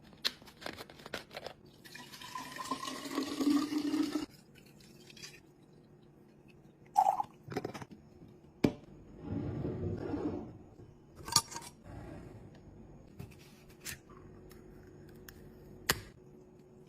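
Liquid poured into a container, its pitch rising as the container fills, then a second, shorter pour, among sharp clicks and knocks of containers and lids being handled.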